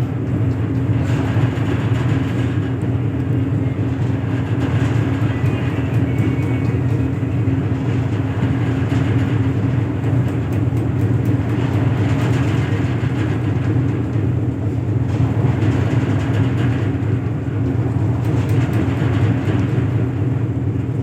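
An engine running steadily, with a constant low drone that does not change pitch or level.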